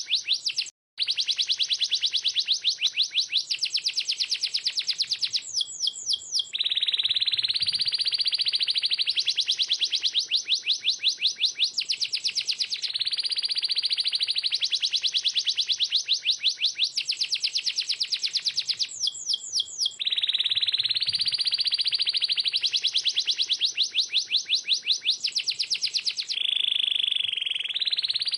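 Domestic canary singing continuously: fast trills of rapidly repeated chirps alternate with smooth rolling phrases. A few short runs are made of slower, separate notes, and the song breaks off briefly about a second in.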